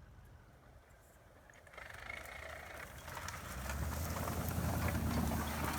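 Pickup truck driving through snow: quiet at first, then from about two seconds in the engine and tyre noise build up. A steady low engine hum grows louder over the last couple of seconds.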